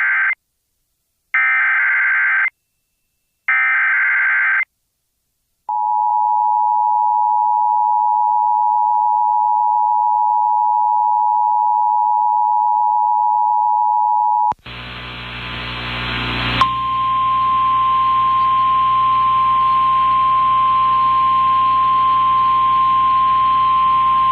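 Emergency Alert System activation: three short bursts of the SAME digital header, then the two-tone EAS attention signal, held for about nine seconds. After a brief rush of static, a single steady tone near 1 kHz plays over a hissing, humming background: the 1050 Hz warning alarm tone of a relayed NOAA Weather Radio feed.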